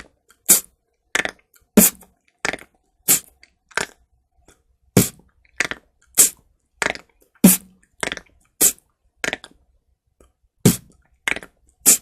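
Beatbox four-beat pattern made with the mouth: kicks pushed out with the lower lip against the upper teeth, alternating with hi-hats about every 0.6 s, each stroke followed by a short tongue click roll, the rattling 'bone-cracking' sound. The pattern pauses briefly twice.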